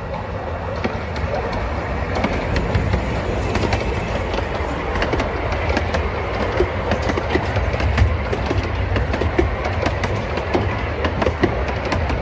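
A 10¼-inch gauge steam railway train passing close by. The locomotive goes past at the start, then a long string of carriages rolls by with a steady rumble and a stream of clicks from the wheels over the rail joints.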